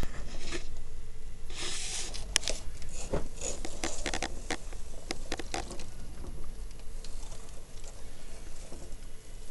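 Blizzard wind buffeting the microphone as a steady low rumble, with a scatter of sharp ticks and crackles between about two and six seconds in.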